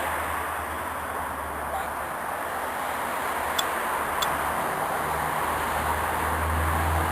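Street traffic going past, with a low engine rumble that builds toward the end as a heavier vehicle nears. Two sharp clicks come about half a second apart midway.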